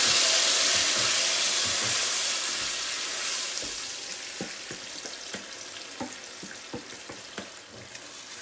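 Tomato purée poured into hot olive oil and browned garlic in an aluminium pot, sizzling loudly at first and dying down over about four seconds as it is stirred with a wooden spoon. After that, a softer sizzle with light clicks of the spoon against the pot.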